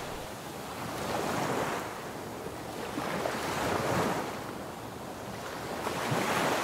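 Sea surf breaking on a beach, the wash swelling and fading about every two and a half seconds.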